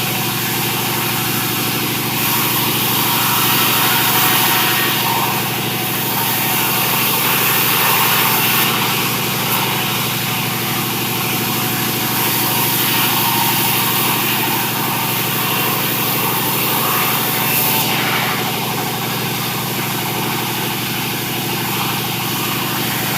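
Sawmill machinery running steadily with an engine-like drone and whine, unbroken throughout.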